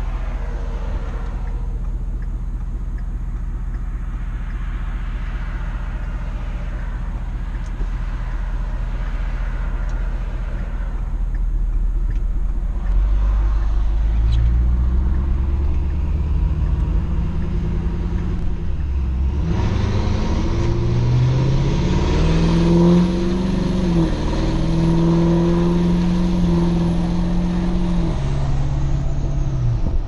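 Inside the cab of a Ford F-250 with the 6.7 Powerstroke turbo-diesel V8, driving on the road. A steady low engine and road drone gives way about halfway through to the engine pulling harder, its pitch rising and stepping through gear changes. Road and wind noise then builds as the truck settles at speed.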